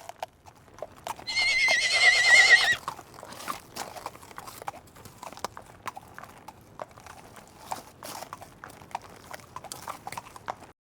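Horse whinnying once, a loud call of about a second and a half with a quavering pitch, about a second in. It is followed by scattered clopping of hooves on hard ground.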